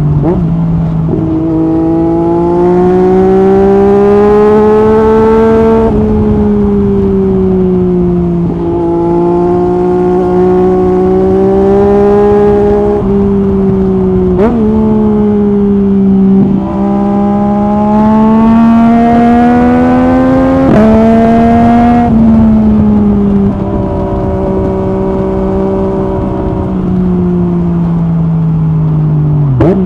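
Yamaha MT-09 SP inline three-cylinder engine through an Akrapovic Carbon Racing-Line exhaust with the dB-killer removed, pulling under load on the move. Its note climbs slowly in long pulls and then drops or steps at the gear changes, with a few short sharp cracks at the shifts.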